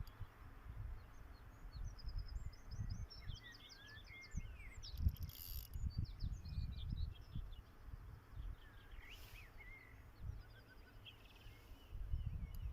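Small songbirds singing, with rapid chirps and trills repeating throughout, over an uneven low rumble.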